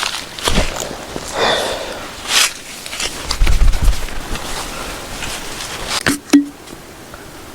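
Rustling and scraping handling noises, with a dull low thump in the middle and two sharp clicks about six seconds in.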